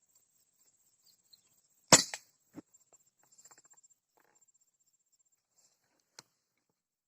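A single air rifle shot about two seconds in, a sharp crack with a short tail, followed by a dull knock and a few faint clicks.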